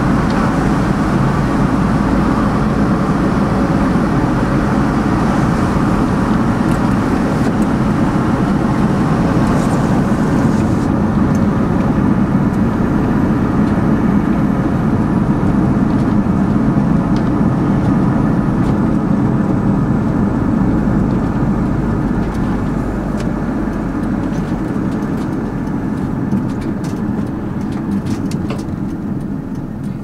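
Steady road and engine noise of a moving car heard from inside its cabin, tyres rolling and engine running at road speed. It grows gradually quieter over the last several seconds as the car slows in traffic.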